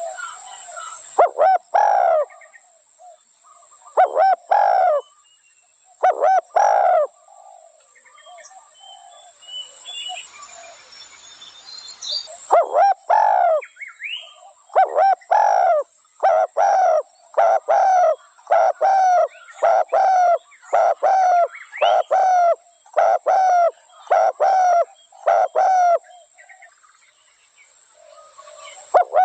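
Spotted dove cooing. It starts with a few spaced phrases, then after a short pause gives a long, fast run of coos, a little over one a second.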